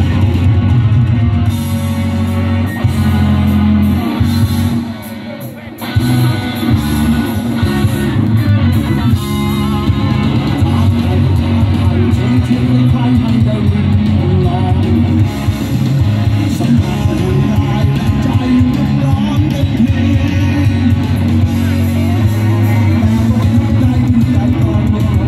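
A live rock band playing through a loud PA, electric guitar to the fore over heavy bass and drums, heard from the audience. The music dips briefly about five seconds in, then comes back at full level.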